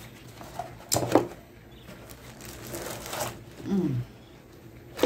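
Moulded paper-pulp packaging insert scraping and rustling as it is pulled out of a cardboard box, in two short noisy bursts about a second and three seconds in.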